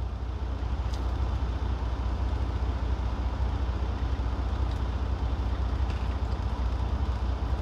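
Semi-truck's diesel engine idling, heard inside the cab as a steady low rumble with a faint hiss above it.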